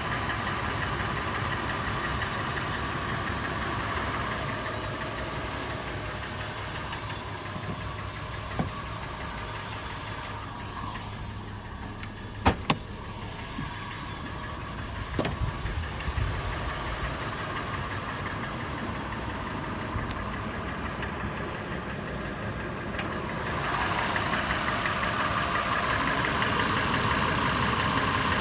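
FJ engine idling warm with a metallic tapping/knocking: the tapping the owner is trying to trace. About halfway through the engine sound turns muffled, with a couple of sharp clicks, then comes back louder near the end.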